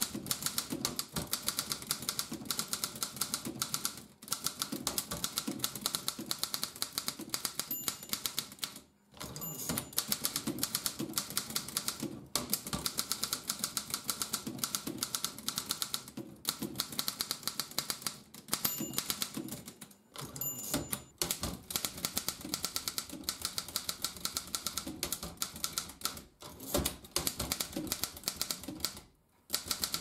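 1929 Continental Standard manual typewriter being typed on: fast runs of key and typebar strikes against the platen, broken by short pauses every few seconds.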